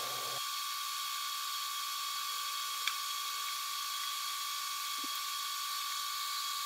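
Ender 3 3D printer's fans and mechanism played back sped up: a steady high whine over a hiss, with a faint click about three seconds in and another about five seconds in.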